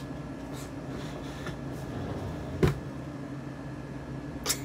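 Steady low electrical or fan-like room hum, with two sharp knocks: a loud one a little past halfway and a fainter one near the end.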